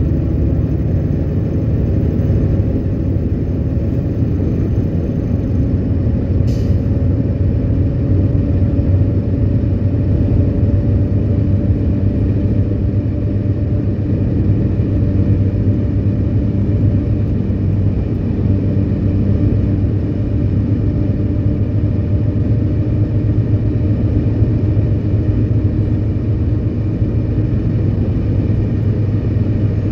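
RM-2 air-conditioned coach running on the road: a steady low engine hum with road noise. There is one short click about six and a half seconds in.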